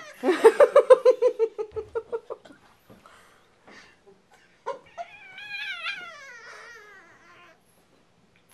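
French Bulldog–Boston Terrier mix puppy whining: a quick run of short high whimpers that fades over about two seconds, then a long whine falling in pitch about five seconds in.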